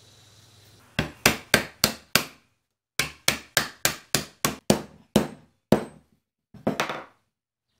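A hammer tapping a thin dovetailed wooden strip down into its slot on top of a glued-up wooden vise block: sharp wood-on-wood taps, about three or four a second, in a run of five, then after a short pause a run of about ten, then a quick few taps near the end.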